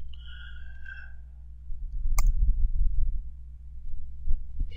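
Steady low electrical hum on the microphone line, with one sharp click about two seconds in, as the slide is advanced.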